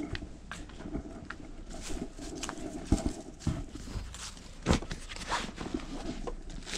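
Footsteps on dry grass and dirt, then irregular knocks, clicks and rustling as a motorbike and a backpack on it are handled.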